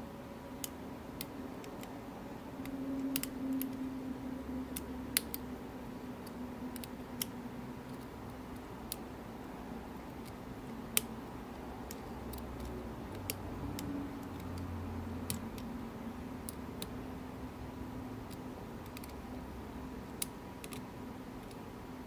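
Scattered, irregular sharp clicks and scrapes of a lock pick working the pins inside an Illinois Duo padlock's keyway under light tension, over a faint steady hum.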